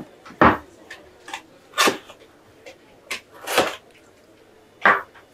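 A white cardboard phone box's seals being cut and peeled off by hand: about six short, scratchy scraping and tearing noises with quiet gaps between them.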